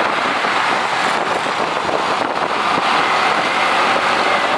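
Steady rush of wind over a motorcycle rider's camera microphone while riding, with the motorcycle's engine and surrounding road traffic underneath.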